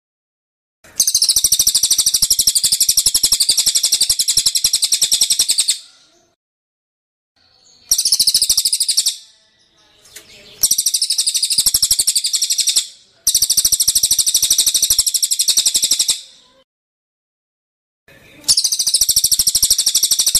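A songbird gives loud, very rapid rattling trills in five bursts of one to five seconds each, separated by short silences.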